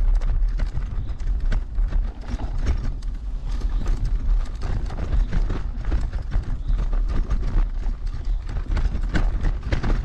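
RS New Vision heavy electric scooter riding over a rough forest track: irregular rattling and knocking as it jolts over the bumps, over a steady low rumble.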